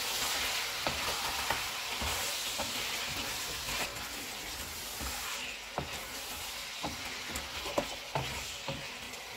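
Chicken pieces and ginger-garlic paste sizzling in hot oil in a wok on a medium flame, stirred with a wooden spatula that knocks and scrapes against the pan now and then.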